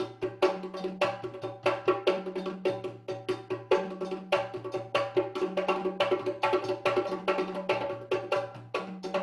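Rhythmic percussion music: a fast, even run of sharp clicking strokes, about five a second, over a repeating two-note bass line.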